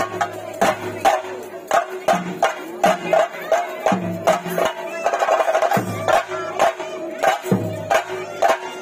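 Theyyam ritual music: traditional Kerala drums beaten in a fast, driving rhythm with cymbal clashes and heavier low drum beats every couple of seconds, over a held note from a wind instrument.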